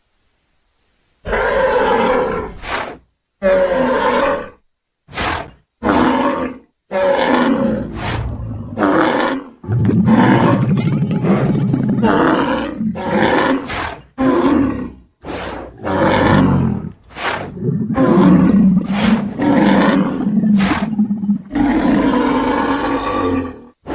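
A string of deep animal bellows and grunts made as a creature sound effect from moose, bull and camel calls. They begin about a second in, come one after another with short breaks between them, and a few are long drawn-out calls.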